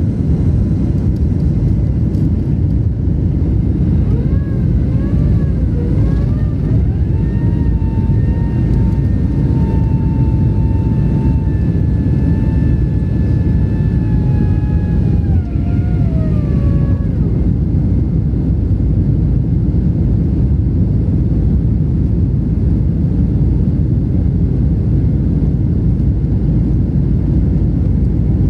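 Boeing jet airliner's engines at takeoff thrust, a loud steady roar heard from inside the cabin as it rolls down the runway, lifts off and climbs. About four seconds in, a whine joins the roar: it wavers, rises in pitch, holds steady for around ten seconds, then falls away.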